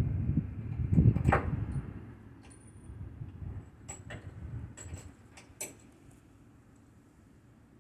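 Hand-tool work on a skid steer's bucket attachment: two heavy knocks in the first second and a half, then a handful of light metallic clicks and taps.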